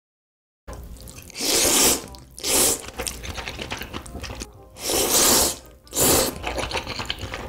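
A person slurping ramen noodles in big mouthfuls: four loud slurps, with wet chewing and smacking between them.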